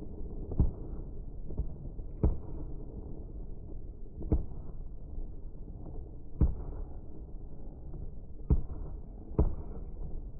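Fireworks going off at a distance: about seven sharp bangs one to two seconds apart, over a steady low rumble.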